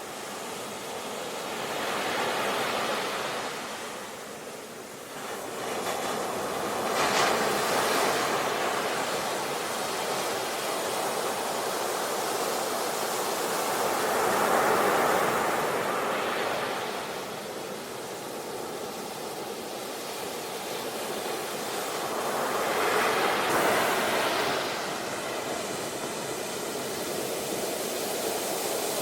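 Sea waves breaking and washing on the shore in slow swells, each surge lasting a few seconds, with the loudest around 7, 15 and 23 seconds in.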